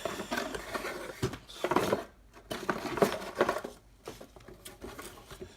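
A Lego set's box being opened and its contents handled: rustling packaging with small plastic pieces clicking and clattering. The handling is busiest in the first three and a half seconds and quieter near the end.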